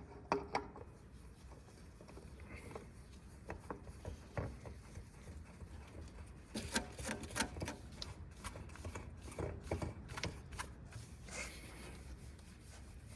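Scattered light clicks, taps and rubbing as a spin-on oil filter and the metal parts around it are handled and screwed on by hand, with a busier run of clicks about halfway through and again a few seconds later.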